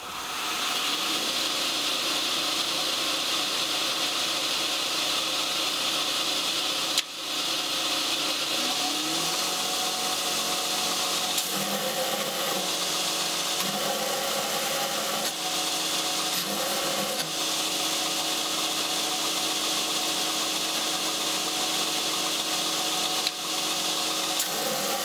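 Belt grinder with a 40-grit belt grinding the faces of flat pieces of 1095 and 15N20 steel clean of scale: a steady grinding hiss over the machine's hum, with a brief drop about seven seconds in.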